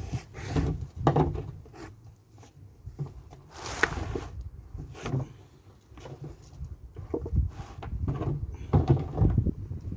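Irregular clunks and knocks from hands-on work on a car, about a dozen scattered through the stretch, with the strongest near four seconds in and near nine seconds in.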